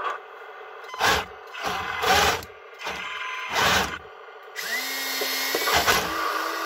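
HengLong radio-controlled Tiger I tank in a firing test: three short blasts about a second apart, then from about four and a half seconds in a small electric motor whirring steadily.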